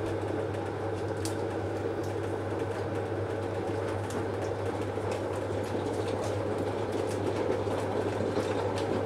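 A steady mechanical hum with a low drone, from a running appliance in the room. Over it come a few faint crinkles and ticks as a yeast sachet is torn open by hand and teeth.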